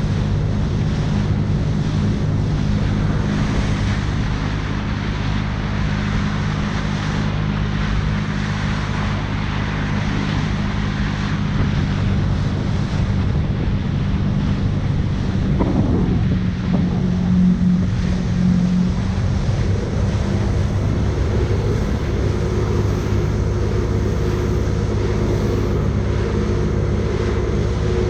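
Jet ski engine running steadily under way, with wind buffeting the microphone and water rushing past. About halfway through, the engine note bends briefly, then settles into a slightly different steady tone.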